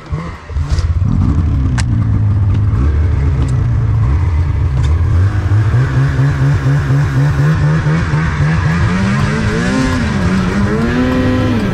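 2003 Ski-Doo MXZ Rev snowmobile's two-stroke engine pulling away and running at speed along the trail. The pitch climbs as it gets going, holds fairly steady, then rises and falls a few times near the end as the throttle is worked.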